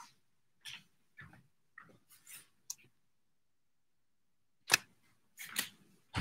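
Handling noise close to the microphone as a hand touches the recording device: a few faint rustles and clicks, a pause, then a sharp knock nearly five seconds in, followed by more short clicks.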